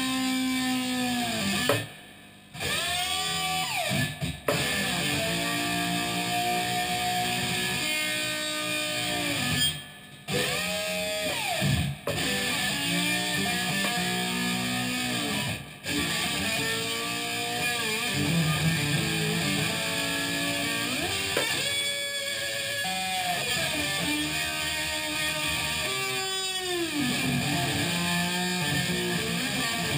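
Six-string cigar box guitar played with a slide: notes and chords glide up and down in pitch, with a few short pauses between phrases.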